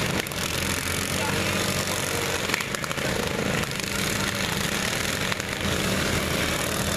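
Several riding lawn mower engines running steadily together, straining as the mowers push against one another, with a few sharp knocks of metal contact.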